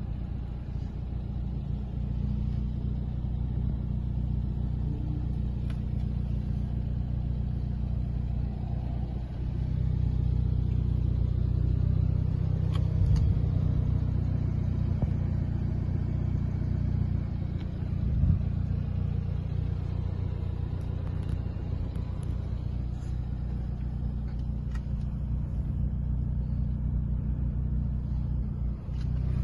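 Hyundai i30 N's turbocharged four-cylinder engine idling steadily, heard from inside the cabin, with a couple of dull knocks partway through.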